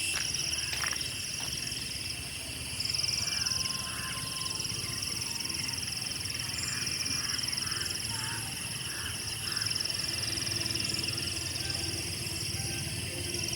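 Steady night-time insect chorus, several high-pitched trills running together without a break. In the middle a short series of lower calls repeats a little over twice a second.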